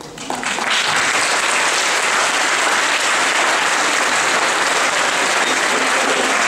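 Audience applauding, the clapping starting about half a second in and carrying on steadily.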